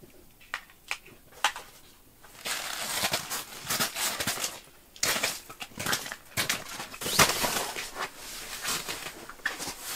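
Light clicks, then fabric rustling and crinkling in uneven bursts from about two and a half seconds in, as bedding is handled on a camping mat.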